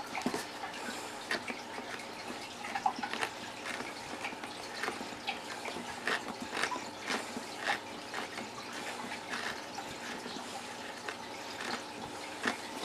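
A hand reamer twisted back and forth in a hole in a plastic lid, shaving the plastic to widen it: a faint, irregular crackle of small scraping clicks.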